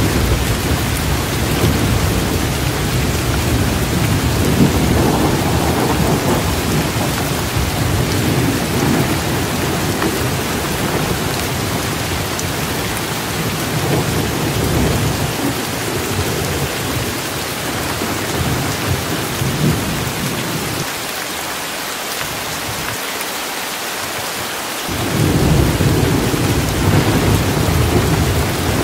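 Steady heavy rain with deep rolling thunder rumbling underneath. The rumble swells and fades, drops away for a few seconds past the middle, and comes back strongly about 25 seconds in.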